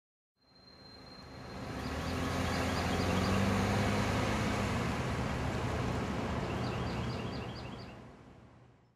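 Road traffic: cars passing by with steady engine and tyre noise that fades in at the start and fades out near the end. Two runs of quick, high, short chirps sit over the top.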